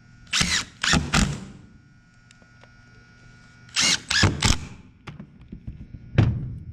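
Cordless drill/driver driving screws through quarter-inch masonite in two short spells, the second about three seconds after the first, each a few quick bursts of the tool, followed by a single thud near the end.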